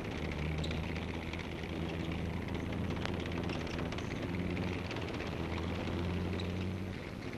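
Vehicle engine running, a steady low drone that swells and eases slightly, under the hiss and faint crackle of an old film soundtrack.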